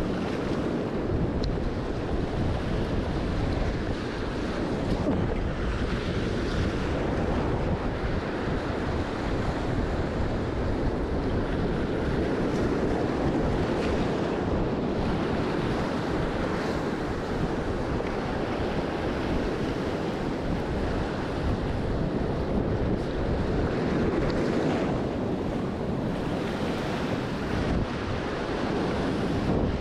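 Wind buffeting the microphone over steady surf washing against the shore.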